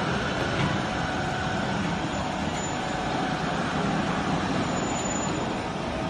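Hydraulic baler's power unit (electric motor and pump) running steadily with a faint constant whine, driving the ram down on its pressing stroke.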